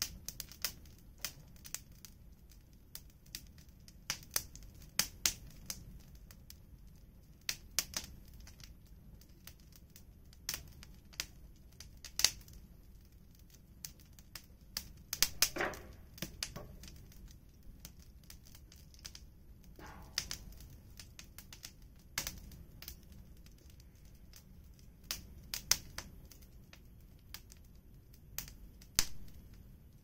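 Wood fire crackling: irregular sharp pops and snaps of burning firewood, a few of them louder.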